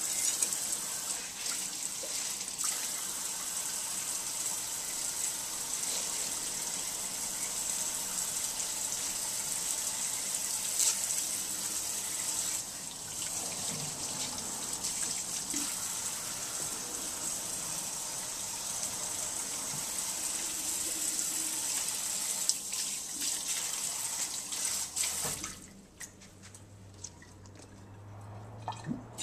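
Kitchen faucet running steadily into the sink, shut off abruptly near the end, followed by a few light taps.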